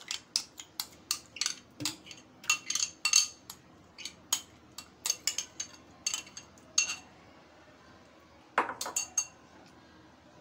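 Irregular sharp metallic clinks and taps with a brief ring, around a metal cooking pot as yogurt is added to a besan-and-water mixture and worked in by hand. There is a pause about two-thirds of the way through, then a last quick cluster of clinks.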